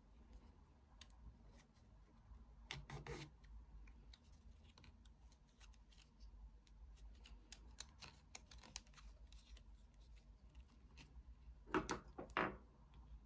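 Faint ticks and light creaks of stiff rattan cane strands being pulled and tucked by hand through a woven border, with a louder rustle about three seconds in and two louder rustles near the end.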